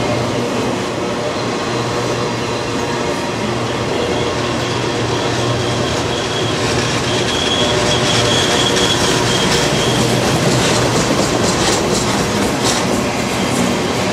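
Freight train cars rolling past with a steady rumble. A thin wheel squeal comes in about four seconds in and fades near ten seconds, followed by sharp clicks and clacks of wheels over the rail joints.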